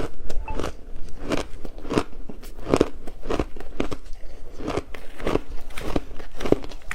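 Someone chewing a mouthful of frozen matcha ice with loud, crisp crunches in a steady rhythm of about one and a half a second.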